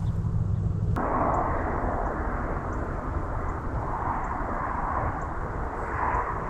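Steady rushing wind and tyre noise from riding an e-bike, with faint, regularly spaced light ticks. It opens on a steady low hum that changes abruptly to the rushing noise about a second in.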